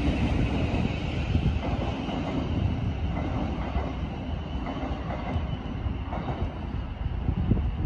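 Thameslink Class 700 electric multiple unit pulling out of the station, its wheels running over the rails and its running gear giving a steady rumble.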